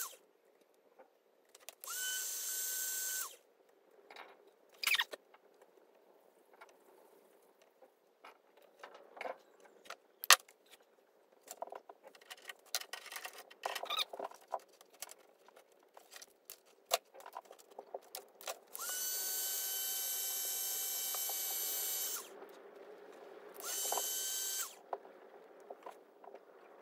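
A small handheld electric power tool running in short bursts with a steady whine, spinning up and winding down each time: a run of about a second near the start, a longer run of about three seconds two-thirds of the way through, and another short one soon after. In between come small clicks and knocks of plastic fittings and tools handled on a wooden workbench.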